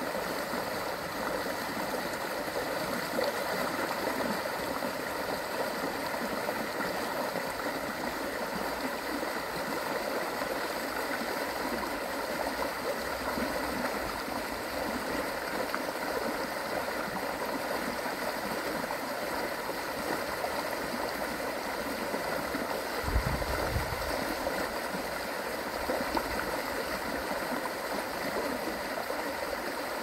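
Steady rush of flowing river water from the Wuhle, carrying a lot of water, with a brief low thump about two-thirds of the way through.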